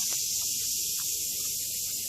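A steady high-pitched hiss of outdoor ambience, with a few short faint ticks.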